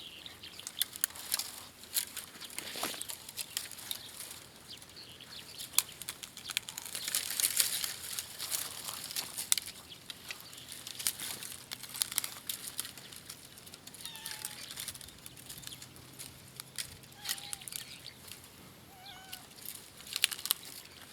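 Dry twigs and wood being handled and broken by hand: irregular sharp snaps and crackles over rustling. A few faint short calls come in the second half.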